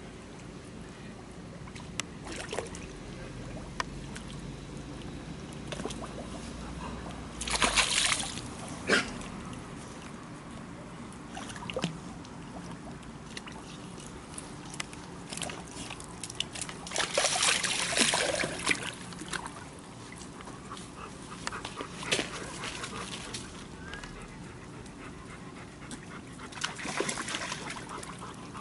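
A dog moving about in water, with irregular splashing and sloshing. The loudest splashes come about eight seconds in and again a few seconds past the middle.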